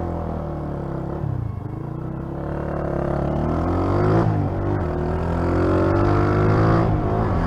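Honda CG 125 Titan's single-cylinder four-stroke engine accelerating through the gears: the pitch climbs, drops sharply at an upshift about four seconds in, then climbs again and drops at a second shift near the end.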